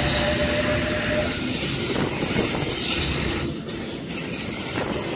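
Sydney Trains H-set (OSCAR) electric multiple unit pulling out and rolling past at close range, its wheels rumbling on the rails. A steady whine fades out about a second in.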